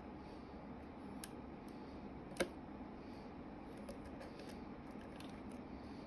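Faint metallic clicks of a lock pick and tension wrench working the pin stack of a clamped challenge lock, with one sharper click about two and a half seconds in.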